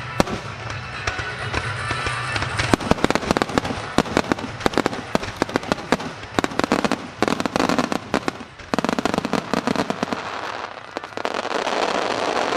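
Aerial fireworks shells bursting in quick succession with dense rapid cracks and pops. About nine seconds in they give way to a swelling hiss and crackle of crackling stars.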